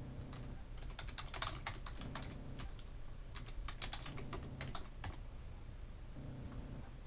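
Typing on a computer keyboard: two quick runs of key clicks, each lasting a second and a half or so, with a short pause between them. The typing stops about two seconds before the end.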